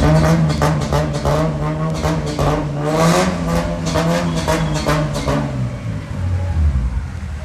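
Toyota 1JZ inline-six engine, swapped into an Altezza and breathing through its newly fitted exhaust, running and being revved, easing off after about five seconds.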